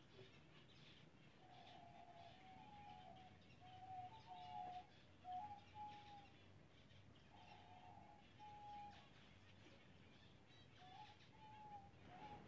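A colony of zebra finches chattering faintly, with many short high calls throughout. A run of short, clear whistled notes comes in the middle.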